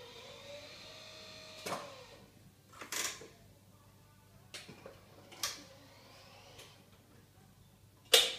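A roll cart's lift motor whines for about two seconds, its pitch rising. Then a series of sharp metal clicks and clunks follow as the probe's lateral pin is released and adjusted, the loudest a sharp clack near the end.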